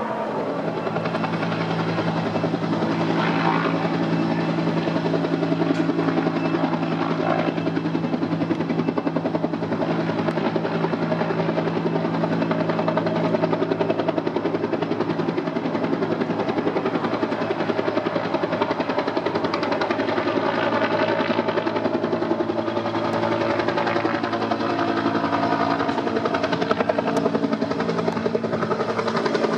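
Japan Ground Self-Defense Force UH-1J helicopter flying overhead, its rotor and turbine engine making a steady, continuous sound.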